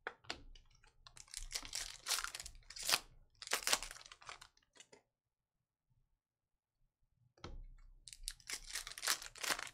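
Foil wrapper of a Panini Contenders football card pack being torn open and crinkled by hand. The rustling comes in two spells with a pause of about two seconds between them.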